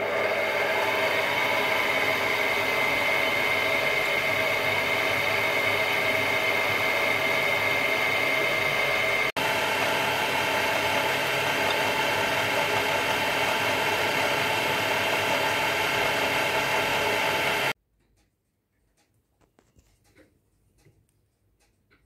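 Small milling machine running steadily with a whine, its end mill cutting slots into a brass block. The sound breaks for an instant about 9 seconds in and stops about 18 seconds in.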